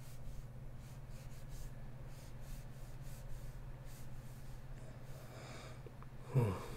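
Faint scratching of a stylus on a drawing tablet over a steady low electrical hum. Near the end comes a short vocal grunt that falls in pitch.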